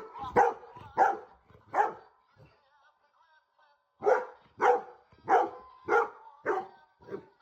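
Golden retriever barking: three barks, a pause of about two seconds, then six more barks at an even pace.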